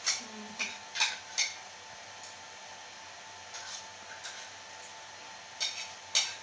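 Metal spoons clinking and scraping against ceramic plates while eating, in short, irregular clicks, some close together, over a steady background hum.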